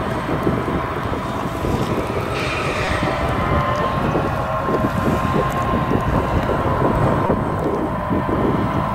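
Ropa Tiger 6 self-propelled sugar beet harvester running in the field: a steady diesel rumble with a steady whine over it. Wind buffets the microphone.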